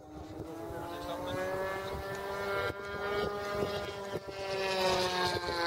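Radio-controlled model aircraft engine running in flight, a steady buzzing drone whose pitch bends slightly. It grows louder as the plane comes nearer.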